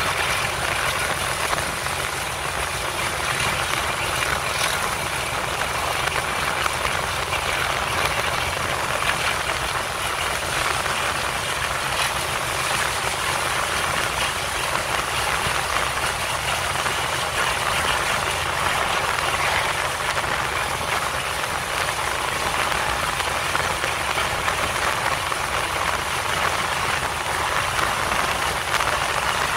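English Electric 12CSVT V12 diesel engine of a Class 37 locomotive working hard under power as the train accelerates through about 45 to 60 mph. It is a steady, unbroken drone mixed with the rush of passing air on the microphone.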